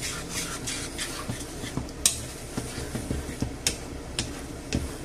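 Wooden spatula stirring and scraping thick tomato sauce around a non-stick frying pan, with several sharp clicks of the spatula against the pan, the clearest about two seconds in and a few more near the end.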